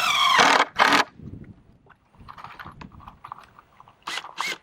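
Power drill driving a screw into wood in a loud burst, the motor's pitch bending as the screw bites, followed by a second short burst. Then light knocks and clicks of the wood being handled, and two quick blips of the drill near the end.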